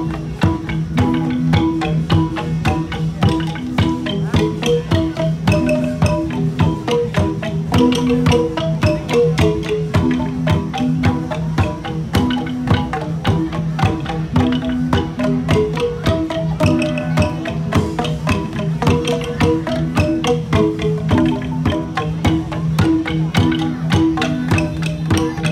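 Central Highlands gong ensemble music (cồng chiêng): many tuned gongs struck in a dense, fast, repeating interlocking pattern over a steady low hum.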